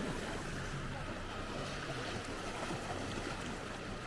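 Steady outdoor ambience, an even wash of noise, with faint voices in the background.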